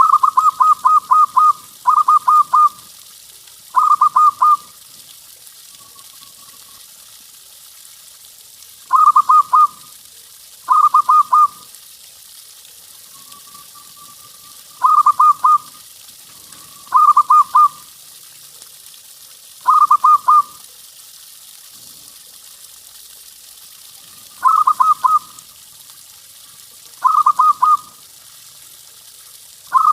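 Zebra dove (perkutut) cooing: about eleven short phrases of rapid, stuttering coos, repeated every couple of seconds, with a few soft drawn-out coos in the gaps. A steady hiss runs underneath.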